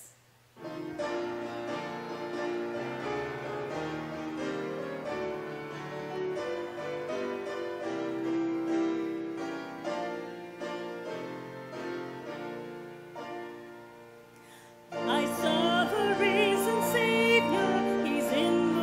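Grand piano playing a hymn introduction. About fifteen seconds in, a woman begins singing the hymn solo over the piano, her voice wavering with vibrato.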